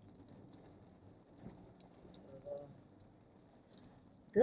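Rain pattering on the car's roof and windscreen, heard from inside the cabin as faint, irregular ticking over a low hum of road noise.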